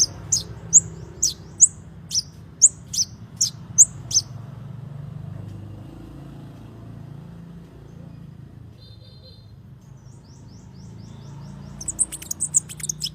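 Konin bird calling: a run of sharp, high chirps about three a second for the first four seconds, then a quieter stretch with a brief trill, and a fast burst of chirps near the end. These are its calls for taunting a rival, used as masteran training audio.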